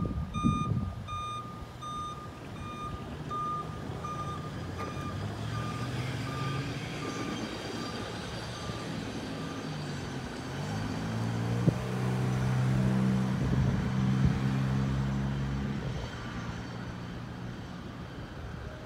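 A hi-rail pickup truck's reverse alarm beeps about twice a second as the truck backs along the track, growing fainter and dying out about nine seconds in. From about eleven to sixteen seconds in, a louder steady engine hum rises and then fades.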